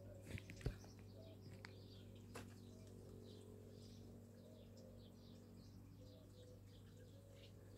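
Faint birds chirping, with short low cooing notes, over a steady low hum. A few light clicks come in the first second and once more a little later.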